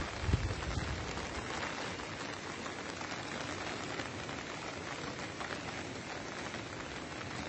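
Steady, even hiss of water, with a brief low rumble on the microphone about half a second in.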